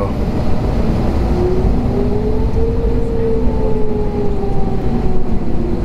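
Cabin noise inside an Airbus A321neo taxiing on its CFM LEAP-1A engines: a steady low rumble with faint engine tones that slowly rise and fall in pitch.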